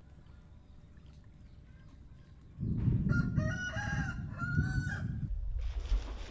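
A rooster crows, a call in several rising and falling parts starting about two and a half seconds in, over a low rumble. Near the end a cast net lands on the water with a splash.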